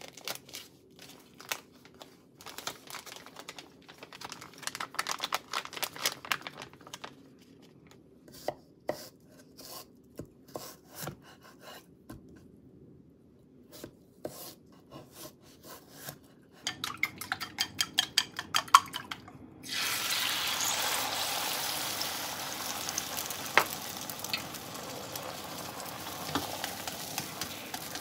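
Kitchen knife cutting a cucumber on a wooden cutting board, with sharp knocks and clinks of bowls. After a short run of rapid, even tapping, beaten egg sizzles steadily in a square omelet pan on a gas stove from about two-thirds of the way in.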